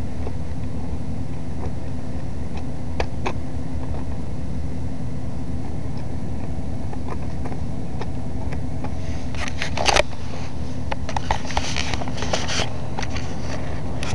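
Lego plastic parts clicking and rattling as the model is handled, a few single clicks early on and a denser run of clatter about ten seconds in, over a steady low hum.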